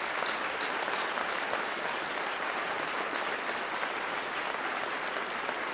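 An audience applauding steadily: many hands clapping at once, at an even level.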